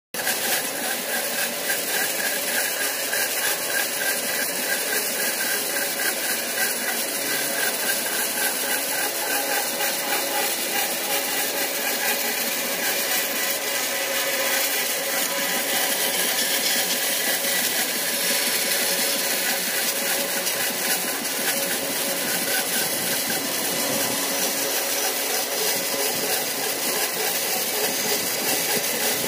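Band saw running and cutting through a thick wooden slab as it is fed along a curved line: a steady, even sawing noise.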